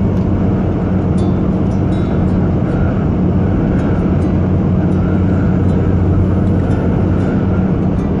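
Heavy truck's engine running steadily at cruising speed, heard from inside the cab, with a constant low hum over tyre and road noise.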